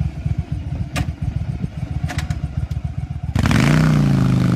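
V-twin cruiser motorcycle idling with an uneven, pulsing beat and a few sharp clicks, then about three seconds in it is throttled up and pulls away, the engine suddenly much louder with a steady note.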